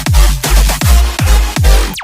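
Background electronic dance music with a heavy bass beat, about two and a half beats a second. Near the end a falling sweep leads into a brief break.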